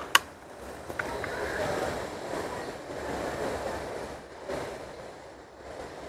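A sharp metallic click just after the start and a lighter click about a second in: the air rifle's action being worked between shots. A faint steady rumble runs underneath.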